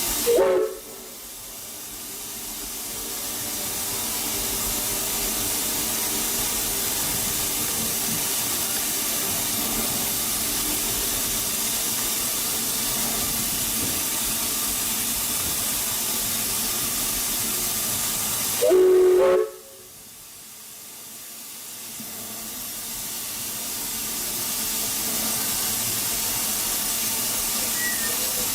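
Steam locomotive hissing steadily, with two short toots of its replica Baldwin three-chime steam whistle: one right at the start and one about two-thirds of the way through.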